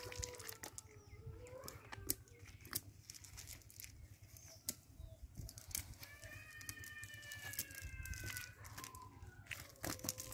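Scattered, irregular sharp taps and rustles as freshly caught fish flap on the dry bank and are picked out of a cast net by hand.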